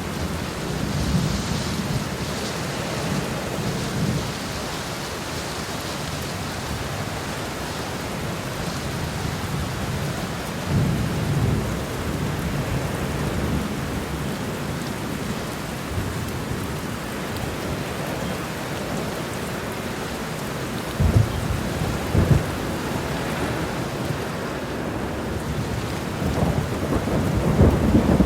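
Thunderstorm: heavy rain falling steadily while thunder rumbles low several times. Two sharp thunder cracks come about two-thirds of the way through, and the rumbling builds again near the end.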